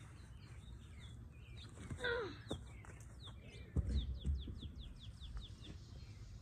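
A songbird singing a rapid series of short, downward-sliding chirps, speeding up as it goes, with a few low thuds around the middle.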